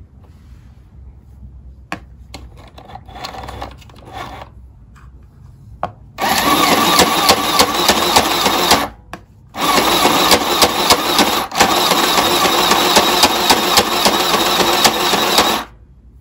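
Small electric mini sewing machine running as fabric is stitched through it, in two long runs with a brief stop between, the first starting about six seconds in. Before that, quieter rustling of fabric being handled.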